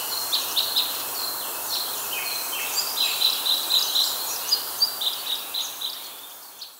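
Birds chirping in quick short notes over a steady hiss of outdoor ambience, fading out near the end.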